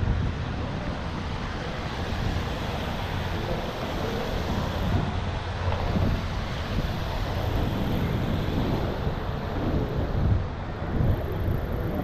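Wind buffeting the microphone of a camera on a moving bicycle, over a steady low rumble.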